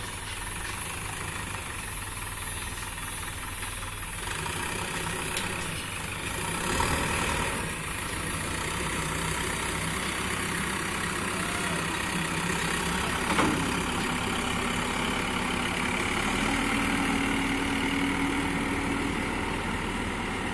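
Backhoe loader's diesel engine running steadily with a low rumble as the machine drives across the site; a sharp clack about 13 seconds in, followed by a steady whine for several seconds.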